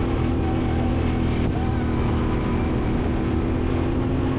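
A vehicle engine running steadily at an even speed, a constant low hum.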